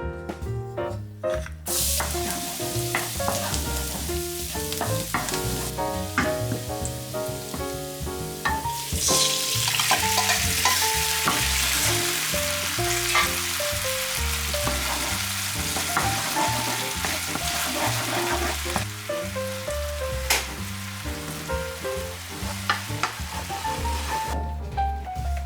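Food sizzling as it fries in hot oil, a steady crackling hiss that comes in about two seconds in, grows louder through the middle and drops away near the end. Background music plays underneath.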